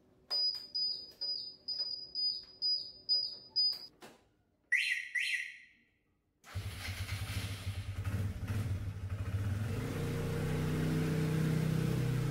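A string of about eight short, high electronic beeps, then two short falling chirps. About halfway through, the hybrid-converted motor scooter starts up and pulls away, its running note rising in pitch and getting louder.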